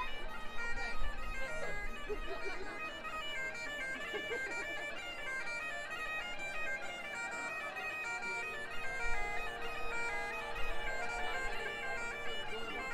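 Bagpipes playing a tune: a melody of stepping notes over a steady drone.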